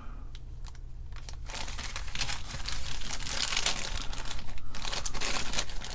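Small zip-lock plastic parts bags crinkling and rustling as they are handled and turned over, quiet at first and busier from about two seconds in.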